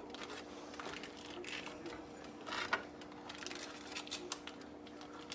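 Plastic wrapping on vacuum-packed salmon fillets crinkling and rustling as it is cut open with a knife, in scattered clicks and crackles over a steady low hum.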